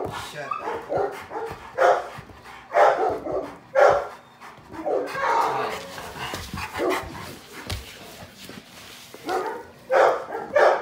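Two large pit bulls play-fighting, barking and vocalizing in short bursts about once a second, with a longer run of noise midway through.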